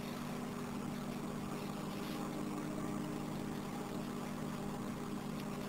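Microwave oven running with bread inside: a steady electrical hum in the last seconds of its heating cycle.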